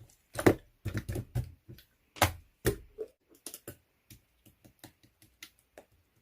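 Jelly slime being squished and pressed by hand, giving irregular sharp clicks and pops. They are louder and quicker in the first three seconds, then come sparser and fainter, and stop just before the end.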